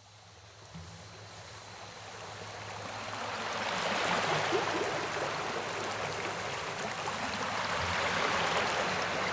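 Flowing stream water, a steady rushing babble that fades in over the first few seconds and then holds even.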